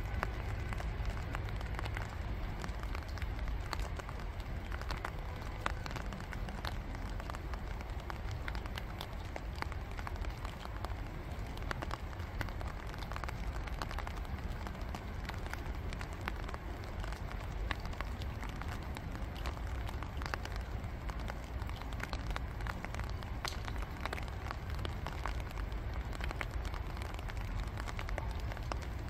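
Spring rain falling on a shallow pond: a steady patter of raindrops on the water, with many small separate drop hits, over a steady low rumble.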